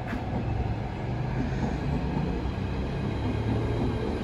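Class 395 high-speed electric multiple unit running, with a steady low hum over even rail noise.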